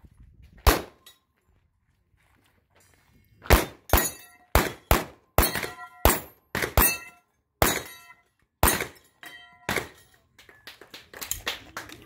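Handgun shots, about a dozen, fired at an uneven pace with short gaps. Many are followed by a brief ringing ding from steel plate targets being hit.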